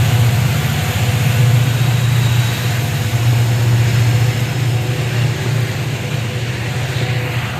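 Moving train, a loud steady low rumble with a fast flutter running through it.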